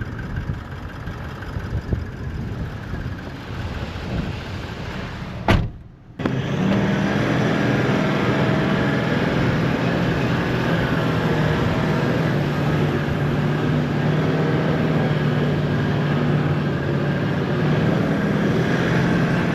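Car driving along with its engine running steadily. About 6 seconds in there is a sharp click and a brief gap, after which the engine drone is louder and holds a constant hum.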